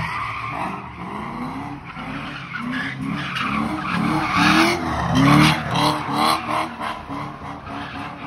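Cadillac CTS sedan doing donuts: the engine is revved up and down in pulses about twice a second while the spinning rear tyres squeal and hiss on the pavement.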